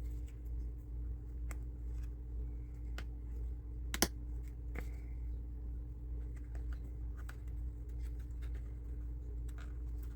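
Scattered small clicks and taps of model-kit pieces being handled and fitted together with small connectors, with a sharper click about four seconds in, over a steady low hum.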